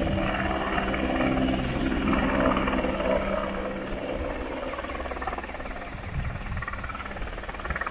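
An engine drone: a steady low humming pitch over rushing noise, easing off after the first few seconds.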